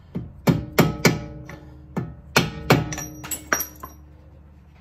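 About a dozen mallet blows on a socket set against the new front wheel hub and bearing, tapping the hub home onto its spindle. The blows come in two quick runs with a short pause between, and each strike leaves a brief metallic ring.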